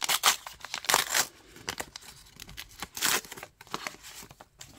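Wrapper of an AFL TeamCoach trading-card pack being torn open and crinkled by hand, in several short bursts of tearing and rustling, the loudest about a second in and about three seconds in.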